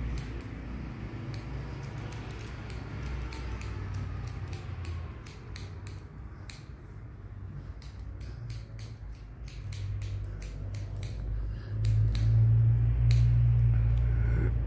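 Barber's shears snipping hair in quick irregular runs while cutting scissors-over-comb, over a steady low hum that grows louder near the end.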